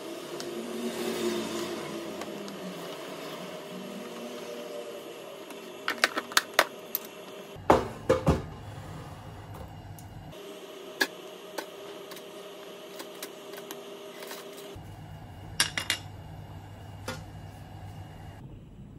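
Wooden chopsticks clinking against a ceramic plate as pieces of dim sum are set down, in several clusters of sharp clicks over a steady low hum.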